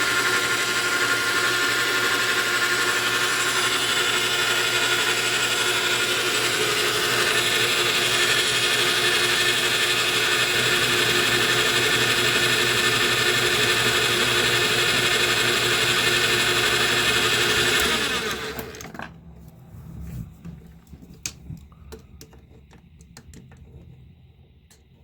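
Metal lathe set up for face milling, running steadily with a whining mix of tones while the cutter takes a final light pass of five thousandths of an inch off a copper bolt. The machine shuts off about 18 seconds in and winds down, followed by a few faint clicks.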